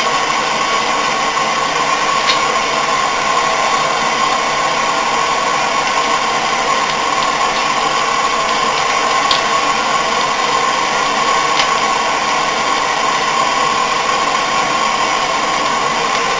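A gas torch burning with a steady hiss, heating the compressor housing so it expands around the press-fitted stator. A few light clicks sound as a spanner works the screw of the wheel hub puller.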